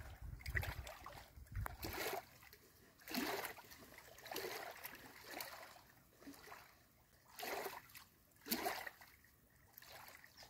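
Small waves lapping at the shore in soft, irregular splashes about a second apart.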